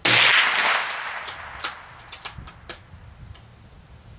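A single 5.56×45 mm rifle shot from an AR-15 firing Federal XM193F 55-grain ammunition, with a ringing tail that fades over about a second. A scatter of sharp light clicks follows over the next two seconds.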